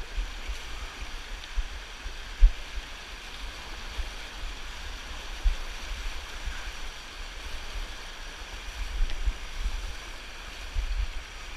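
Fast river current rushing over a shallow rocky riffle close to the microphone, with irregular low thumps from wading and handling.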